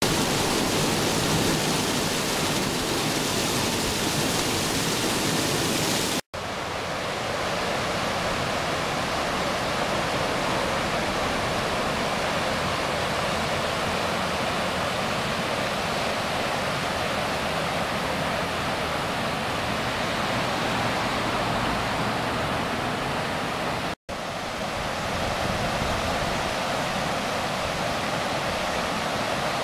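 Flash-flooded creek running out of its banks, its fast, turbulent water making a steady rushing roar. The sound is hissier for about the first six seconds and drops out for an instant twice.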